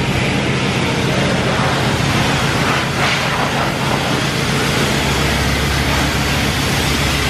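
High-pressure wand at a self-serve car wash spraying water onto a car, a steady loud hiss with a low hum underneath.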